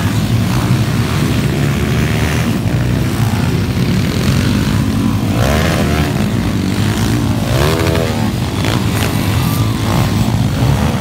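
Small underbone motorcycle engines racing on the track, several running at once. About halfway through, one engine's pitch sweeps up and down twice as it revs.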